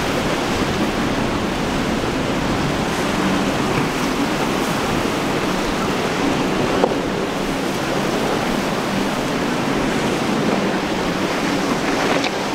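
Steady wash of rough surf and breaking chop with wind buffeting the microphone, over a faint low drone from the boat's twin Mercury 250 hp outboards.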